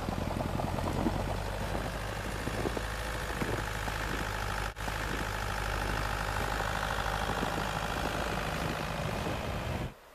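Toyota Land Cruiser SUV's engine running steadily as it pushes through deep snow. The sound drops out briefly about halfway and falls away sharply near the end.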